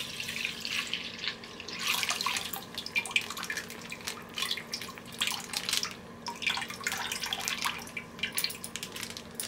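Milk poured in a stream into a metal kadhai, splashing and trickling, then thinning to a few drips near the end.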